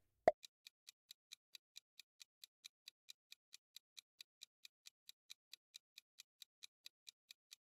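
Countdown-timer ticking sound effect: fast, even, faint ticks, about four to five a second, preceded by a short pop just after the start.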